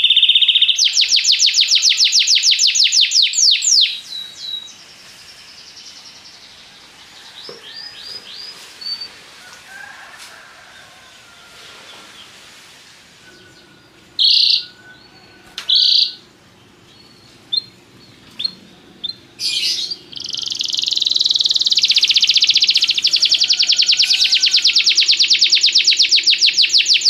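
Domestic canary singing: a loud, fast trill of rapidly repeated high notes for the first few seconds, then a quieter stretch of softer notes broken by two short loud chirps, and from about three-quarters of the way through a long, fast trill again.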